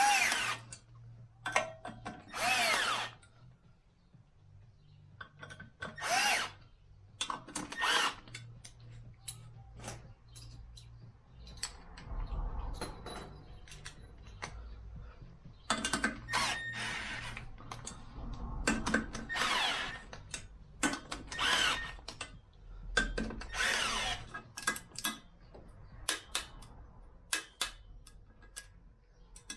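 Cordless drill-driver running in a series of short bursts, each rising in pitch as the motor spins up, with scattered clicks between them: the small bolts of a clutch pressure plate being run in crosswise.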